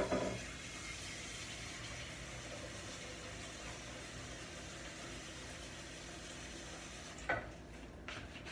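A steady, even hiss that opens with a sharp knock and has a single click about seven seconds in.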